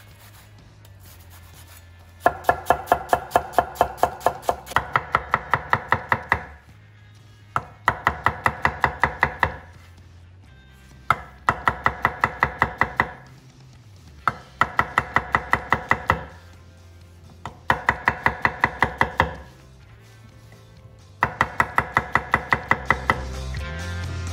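A chef's knife chops an onion and then slices mushrooms on an end-grain wooden cutting board. The knife strikes the board in six quick runs of about five strokes a second, with short pauses between runs.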